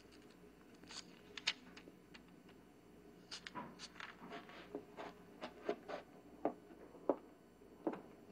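Faint, irregular small clicks and taps, about a dozen spread unevenly, over quiet room tone.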